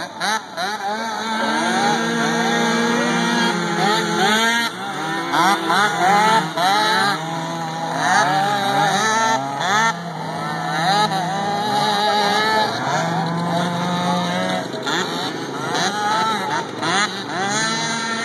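Small engines of several youth mini quads racing, each revving up and dropping back again and again as the riders throttle on and off, the pitches overlapping.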